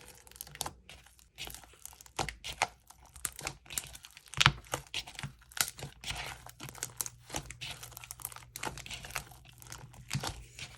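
Sticky slime being squished and stretched by hand, making irregular crackling clicks and pops; the loudest pop comes about four and a half seconds in.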